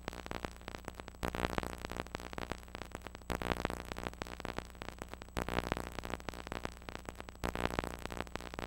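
Electronic synthesizer music: a low held note under a fast pulsing texture, in a phrase that swells anew about every two seconds.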